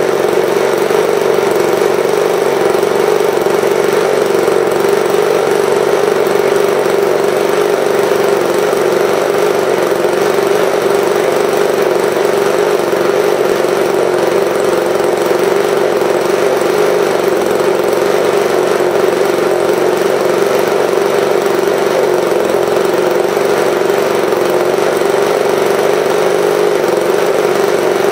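RCGF 15cc two-stroke gasoline model-aircraft engine running steadily at a low break-in speed, turning a three-blade propeller. It is loud and holds an even note without revving up or down.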